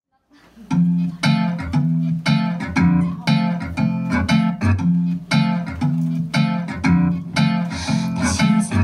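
Acoustic guitar strummed in a steady rhythm, starting about half a second in: the instrumental opening of a song, before any singing.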